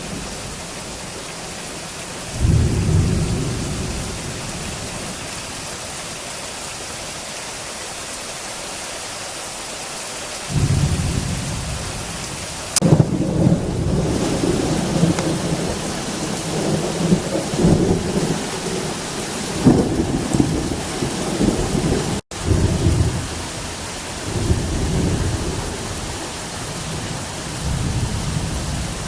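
Heavy rain falling steadily through a thunderstorm, with rolls of thunder: a sudden rumble about two seconds in, another at about ten seconds, then a sharp close crack of thunder about thirteen seconds in. After the crack comes repeated rumbling, broken once by a brief cut in the sound a little past twenty seconds.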